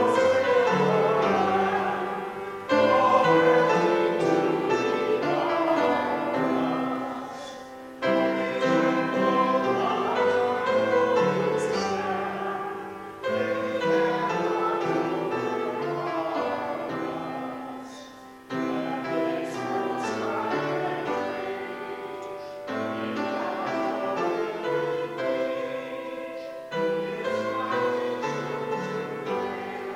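Hymn music played on a keyboard, with voices singing along, in phrases of about five seconds that each begin suddenly and fade away.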